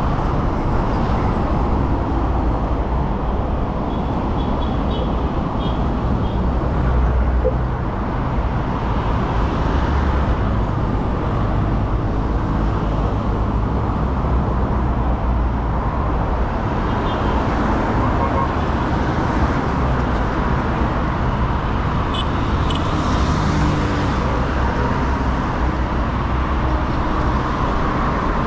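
Steady city road traffic: a continuous wash of car engine and tyre noise from passing vehicles on a busy street.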